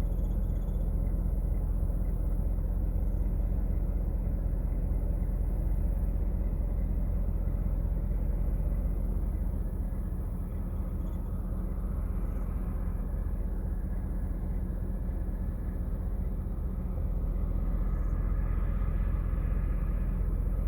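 Steady low vehicle rumble, with no clear tool or impact sounds standing out.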